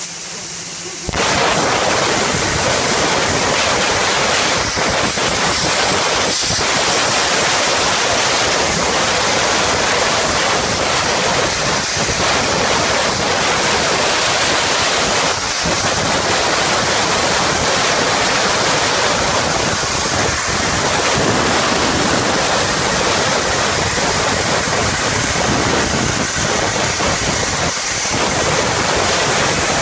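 Plasma arc of a portable CNC plasma cutter striking about a second in, then a steady loud hiss as the torch cuts through steel plate.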